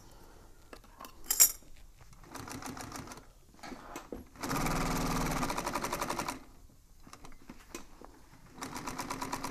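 Industrial sewing machine stitching out a diamond line in three separate runs of rapid, even stitching, starting and stopping between them; the middle run is the longest and loudest. A single sharp clack comes about a second and a half in.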